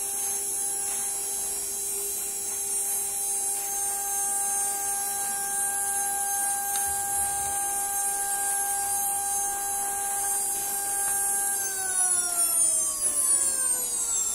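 CNC spindle motor, bearings newly replaced, spinning at speed on a variable-frequency drive with a steady high-pitched whine. It runs very quietly, with no vibration against the steel plate it sits on. About 12 seconds in, the pitch starts to fall steadily as the spindle slows down.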